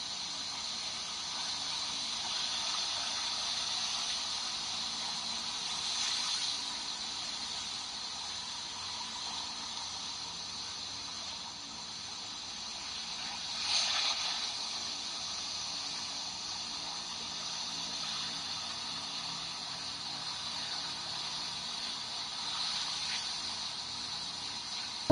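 Sea surf breaking and washing up on a rocky shore: a steady rush of waves that swells as larger waves crash, loudest about halfway through.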